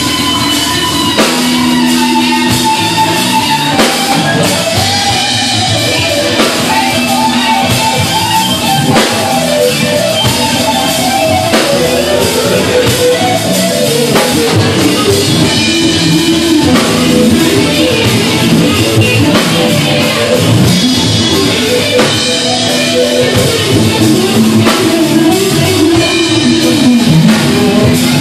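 Live rock band playing loudly: amplified electric guitar over a drum kit.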